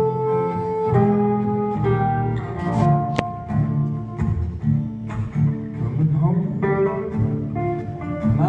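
Live acoustic band playing an instrumental break: a harmonica carrying held notes that bend in pitch, over two strummed acoustic guitars.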